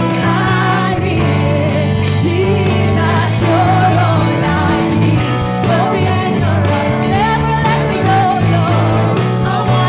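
Live worship band playing a song: a female lead vocal with backing singers over electric guitars, bass, keyboard and drums.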